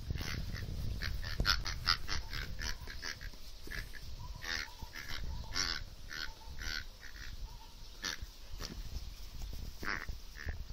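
Plush duck dog toy squeaking many times in short squeaks as an Airedale terrier puppy bites and chews it. The squeaks come quickly at first and more spaced out later, over a low rumble.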